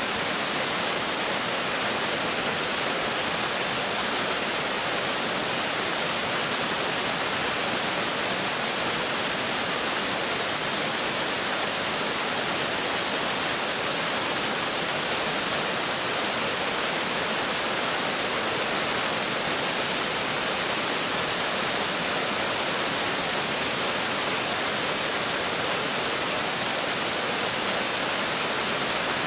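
Waterfall rushing: a steady, even hiss of falling water that never changes.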